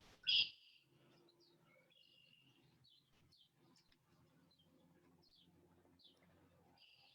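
Birds chirping faintly in the background: short, high chirps scattered through, after a brief louder sound right at the start.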